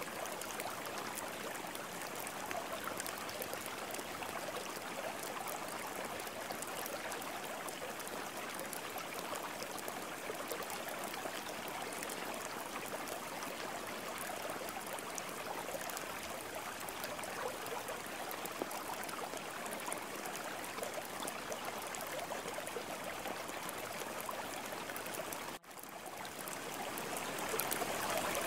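Steady rushing noise like running water. It cuts out for an instant about 25 seconds in, then swells back up a little louder.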